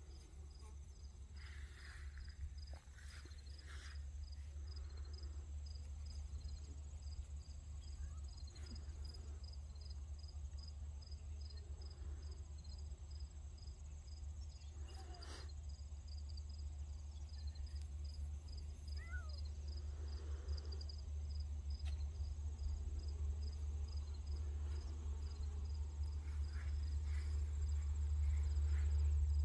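Insects chirping steadily outdoors, about two to three high chirps a second, over a low rumble that grows louder toward the end.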